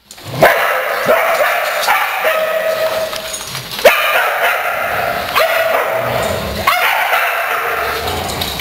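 Several dogs barking and yipping, the barks overlapping almost without a break.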